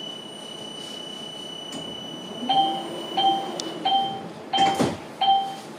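Door-closing warning signal of a Škoda 30T low-floor tram standing at a stop: five short two-tone beeps about two-thirds of a second apart, with a thump near the fourth beep. Before the beeps, a steady high whine.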